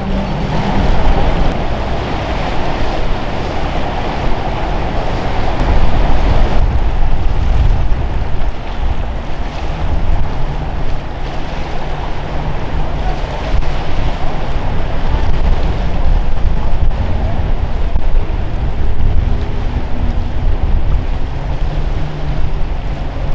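Wind buffeting the microphone over the steady drone of boat engines and the wash of waves in an ocean inlet.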